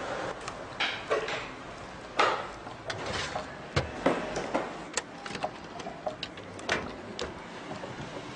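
Irregular clicks, knocks and rubbing of horn-loudspeaker parts, small components and circuit boards being handled and fitted on a workbench, with a sharper knock about two seconds in.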